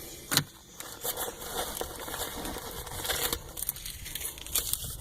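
Packaged first-aid supplies (gauze pads, QuikClot, wipes in plastic and foil wrappers) crinkling as they are handled, with a couple of sharp clicks or knocks.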